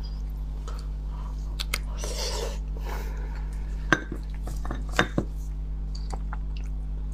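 Beef marrow bones and a thin metal pick knocking against a plate, giving a few sharp clicks about four and five seconds in, with a brief rustle about two seconds in. A steady low hum runs underneath.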